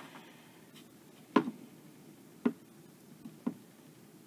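Four light taps and knocks as a small painted wooden piece is handled and glitter cardstock is pressed into it by hand; the first tap, about a second and a half in, is the loudest.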